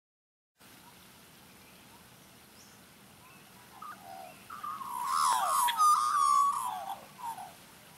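Australian magpie calling: a run of warbling notes that rise and fall in pitch, starting about four seconds in and lasting some three seconds, loudest in the middle.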